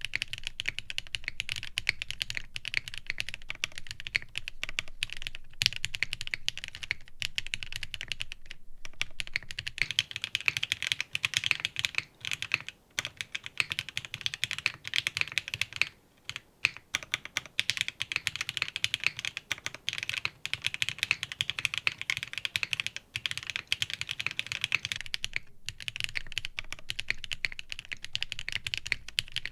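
Fast, continuous typing on a Matrix IM+ Meta mechanical keyboard with lubed and filmed Gateron CJ linear switches, a top-mounted carbon fiber plate, no foam and Key Kobo keycaps. The keystrokes come densely, with a few brief pauses.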